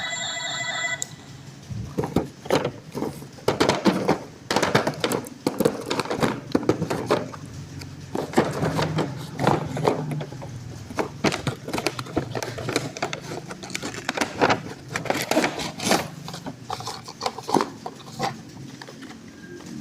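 A short electronic toy tune cuts off about a second in, followed by irregular clicks, taps and rustling as plastic toys and their packaging are handled.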